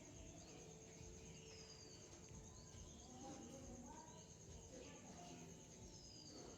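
Faint outdoor ambience: a steady high insect trill throughout, with a couple of short, falling bird chirps, one about a second and a half in and one near the end.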